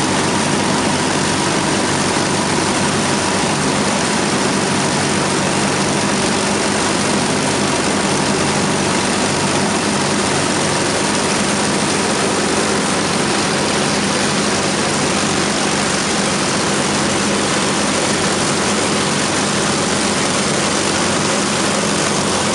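Avro Lancaster bomber's four Merlin V12 piston engines running together, heard loud and close: a steady, even propeller-driven engine sound with no revving.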